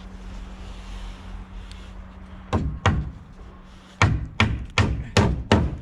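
Hammer blows driving nails into timber: two strikes, a pause, then a run of five evenly spaced strikes.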